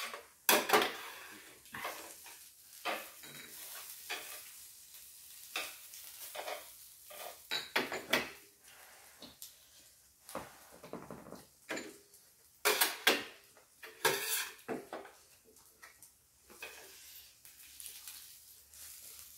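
Chopsticks clicking and scraping against plates and an electric griddle in scattered clinks, with a louder flurry about two-thirds of the way through. Under them, pancakes fry on the griddle with a faint sizzle.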